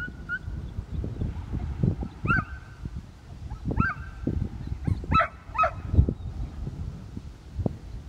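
A search dog giving short, high yelping barks: a few spaced out, then three in quick succession about five seconds in, the last falling in pitch. Wind gusts buffet the microphone throughout.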